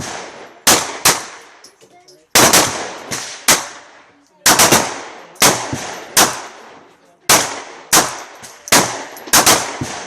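Handgun shots at a shooting range, among them a Glock 42 .380 pistol being fired: about eighteen sharp shots in irregular groups, some only a fraction of a second apart, too many for one six-round magazine, so other shooters' guns are heard as well.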